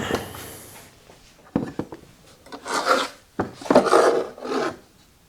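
Several short scraping, rasping strokes, each led by a sharp click, as hard objects are slid and set down in a tool chest drawer.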